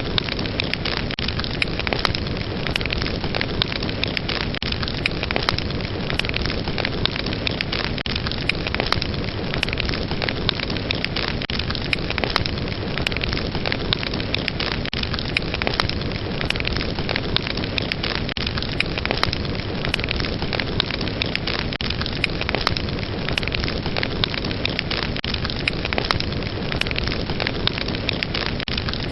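Fire burning with a steady roar of flame and frequent sharp crackles and pops.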